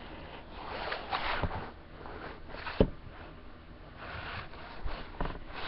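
Rustling and handling noise, with a few sharp taps: one about three seconds in and two more near the end.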